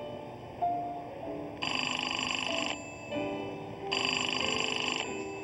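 Payphone ringing: two trilling rings of about a second each, over background music.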